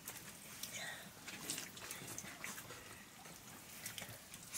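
Hands mixing and scooping rice on metal plates: quiet, scattered small clicks and wet squishes.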